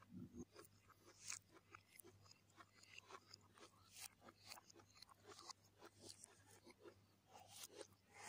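Close-up eating sounds: chewing and lip smacking on soft, saucy chickpea masala eaten by hand, a faint run of small, irregular wet clicks.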